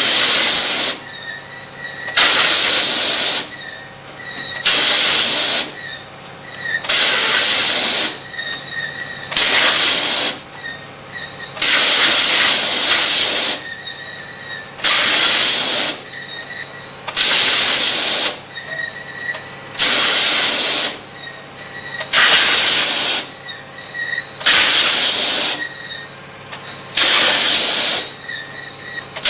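Compressed-air jets of a long-leek root, leaf cutting and peeling machine hissing in blasts of about a second, one every two and a half seconds or so, as the skin of each leek fed in is blown off. A faint steady machine hum carries on between the blasts.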